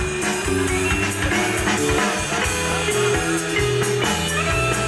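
Rock band playing live: electric guitars, bass and drums with a steady beat.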